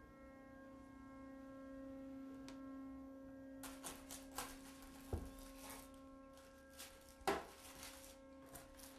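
A steady low hum made of several held tones. About three and a half seconds in, a knife starts sawing through a crusty loaf of bread in a run of short crackling strokes with a dull thump, and a single sharp knock follows a couple of seconds later.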